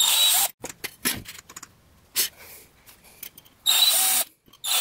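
Cordless drill run in short bursts of about half a second, three times, drilling shallow pilot holes of around 2-3 mm for hinge screws in a fibreboard wardrobe door, with a few light clicks between the bursts.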